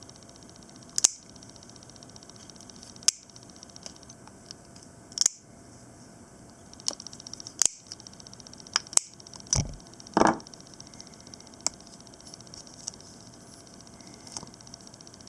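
Plastic clicks and knocks from the HP LaserJet printer pickup roller and its rubber tire being handled, scattered about every one to two seconds, with a short rubbing scrape about ten seconds in.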